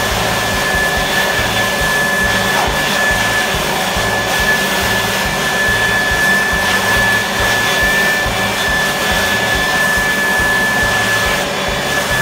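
Handheld electric blower running steadily, a constant high whine over rushing air, its nozzle played over the carved wood squirrel to clear off dust.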